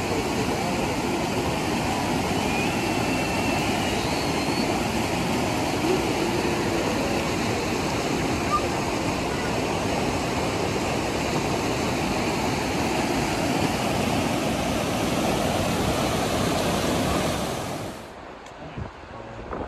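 Fast river rapids rushing over rock ledges, a steady loud roar of white water that cuts off suddenly near the end.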